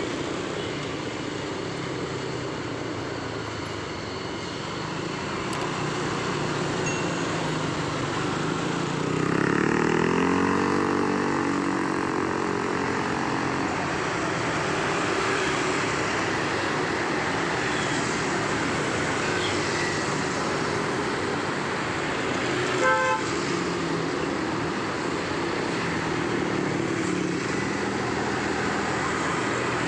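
Road traffic with a bus engine accelerating, its pitch climbing steadily for a few seconds about a third of the way in. Later comes one short horn toot.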